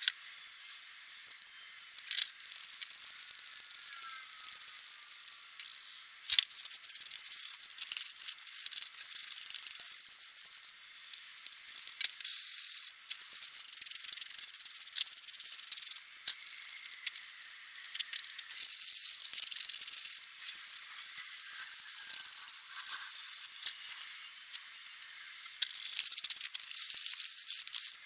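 Rusty cast-iron parts of an old Stanley Bailey No.5 hand plane being handled and taken apart: scratchy rattling, scraping and sharp clicks of metal pieces, thin-sounding with no low end.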